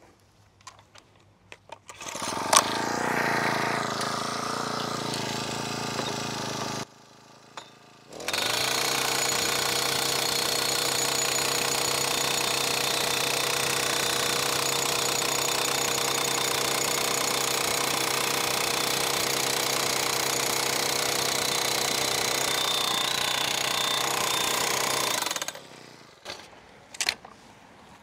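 The Easy Petrol Post Driver's petrol engine starts about two seconds in and runs unevenly for about five seconds, then drops away for a moment. The driver then hammers steadily and loudly for about seventeen seconds, driving a pilot core tool into the ground, and stops near the end with a few clicks after it.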